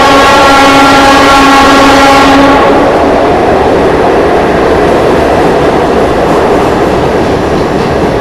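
Train horn held steady for about two and a half seconds, over the loud running noise and rattle of the moving train, which carries on after the horn stops.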